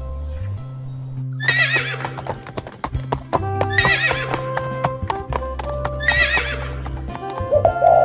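Horses whinnying three times, each a wavering call about a second long, with hoofbeats of a running herd, over background music. A short, lower call comes in near the end.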